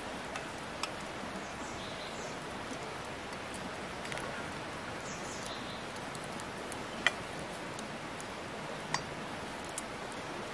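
Chopsticks and a whole boiled chicken knocking against a stainless steel plate as the chicken is set down on it. A few sharp clinks, the loudest about seven seconds in, over a steady hiss.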